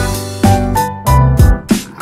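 Background music: a tune of pitched notes over a beat, thinning out and growing quieter near the end.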